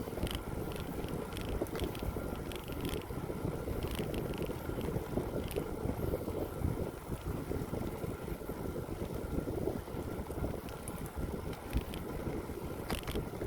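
Wind rushing and buffeting over the microphone of a moving bicycle, mixed with tyre noise on the path, with a few light crackles along the way.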